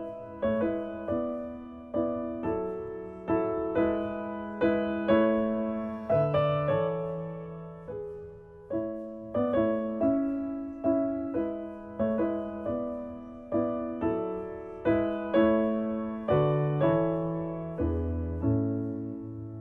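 Piano music: slow chords and notes struck at an even pace, each left to ring and fade.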